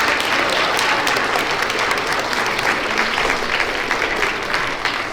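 Audience of school children applauding, a dense steady clapping that begins to thin out near the end.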